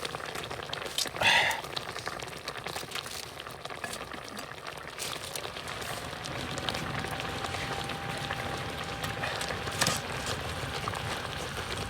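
Pot of crucian carp and tofu soup boiling, a steady bubbling with many small pops and clicks. A short rattle comes about a second in, and a faint steady tone joins about halfway through.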